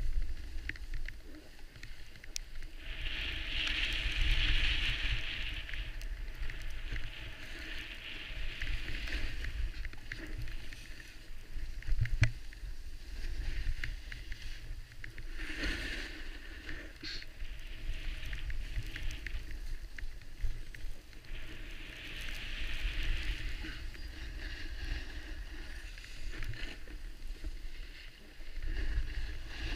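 Skiing or snowboarding down a groomed run: a steady swish of sliding over snow, with louder hissing scrapes where the edges carve turns, and a low wind rumble on the microphone.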